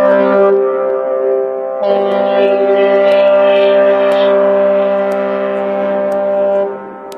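Ship's horn of the MS Achille Lauro sounding one long chord of several steady tones. Its lower tones break off shortly after the start and come back about two seconds in, and the horn stops about half a second before the end.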